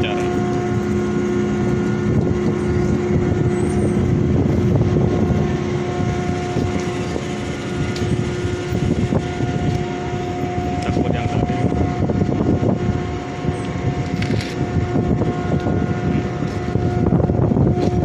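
A ship's machinery running steadily, giving a constant hum over wind noise on the microphone.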